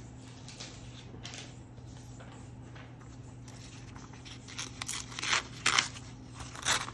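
Sheet-music paper being torn by hand in a series of short rips, starting about four and a half seconds in.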